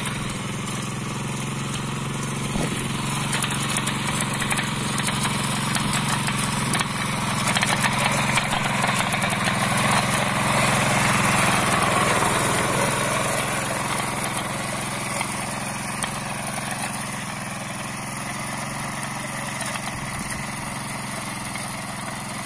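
A mini power tiller's small petrol engine running steadily under load as its rotary tines dig through the soil. It grows louder for a few seconds in the middle, then settles back.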